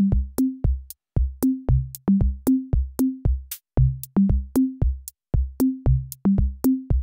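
Background electronic music: a steady drum-machine beat of kick drum and crisp clicks, with a short bass note on each beat bouncing between two or three pitches.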